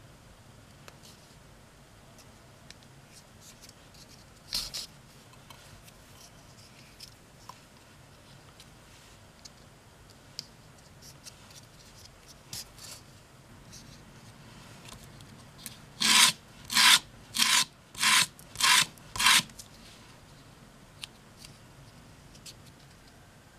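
Small piece of black leather rubbed back and forth on sandpaper: six quick scraping strokes, about two a second, surrounded by faint handling and needle-and-thread sounds.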